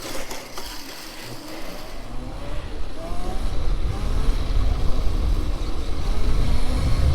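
Modified Razor electric dirt bike's 48-volt motor pulling away, with a whine that rises in pitch as it speeds up. A low rumble swells underneath and becomes the loudest part by the end.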